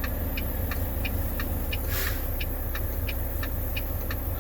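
A steady low hum like an idling engine, with faint, evenly spaced ticks about three times a second.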